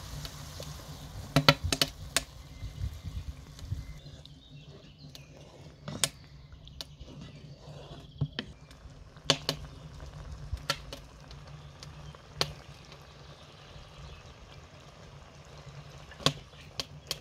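Cream pouring into a steaming pan of mushrooms, a hissing, liquid sound for the first few seconds. Then a wooden spoon stirs the sauce, with sharp knocks against the pan now and then; the loudest knocks come about a second and a half in.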